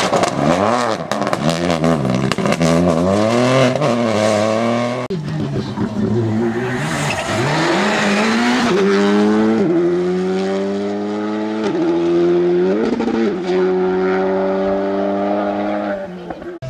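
Two rally cars at full speed, one after the other. First a Peugeot 208 Rally4's turbocharged three-cylinder engine revs up and down with quick gear changes and sharp crackling. Then, from about five seconds in, a Škoda Fabia Rally2's turbocharged four-cylinder accelerates hard, its pitch climbing and dropping back at each of several upshifts.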